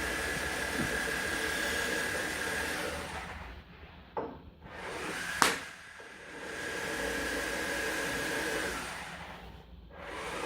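Small electric motor running steadily with a thin whine, stopping about three seconds in. A single sharp click follows about two seconds later, then the motor runs again for about two seconds and stops near the end.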